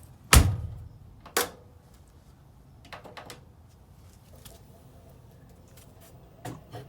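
Two sharp bangs about a second apart, the first the loudest, then a few light clicks and knocks: a washing machine's door or lid being shut and the machine handled as the spin cycle is set.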